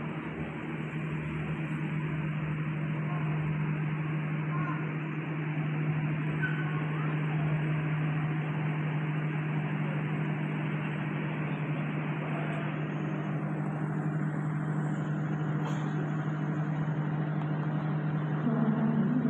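Diesel passenger train standing idle at a station platform, its engine running with a steady low hum under a wash of station noise.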